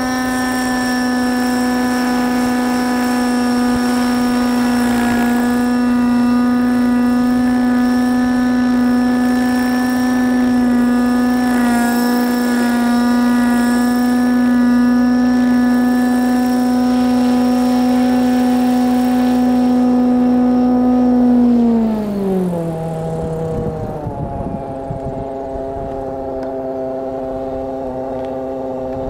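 Nitro glow engine and rotor of a Raptor 90 SE radio-controlled helicopter with an Agusta A109 scale body, running at a steady pitch in the hover. About three quarters through, the pitch falls as it sets down, and it keeps running lower and quieter on the ground.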